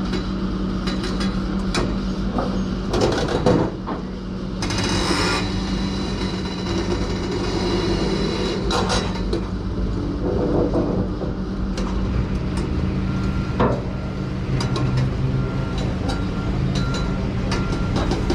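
Heavy diesel machinery running steadily, with metal clanks and knocks at intervals. A short repeated beep sounds in the last few seconds.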